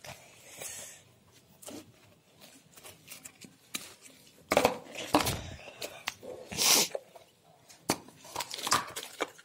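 Hard plastic lunch box containers, lids and a plastic spork being handled and set down: scattered light clicks and taps of plastic on plastic. About halfway through and again a little later come a couple of louder rustling, scraping stretches.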